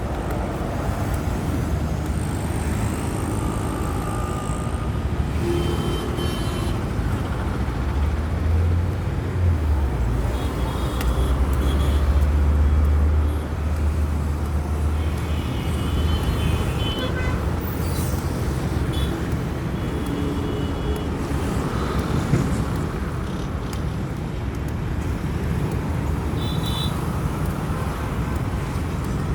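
Steady road-traffic noise of passing motor vehicles, with a heavier low engine rumble swelling from about 8 to 13 seconds in. Several brief horn toots sound through it.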